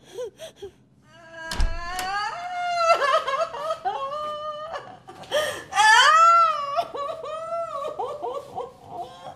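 A woman wailing and sobbing in long, drawn-out cries that slide up and down in pitch, with a dull thump about a second and a half in.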